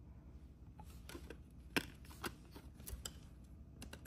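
A CD being handled in its plastic jewel case: several sharp plastic clicks as discs are set into and pressed off the tray's centre hub. The loudest click comes a little under two seconds in.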